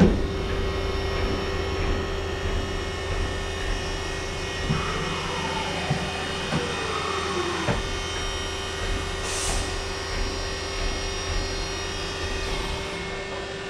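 Haas VF1 CNC vertical machining centre running: a steady electrical hum and tone, with motor whines that glide down in pitch several times, as the drives slow down, and a few sharp clicks.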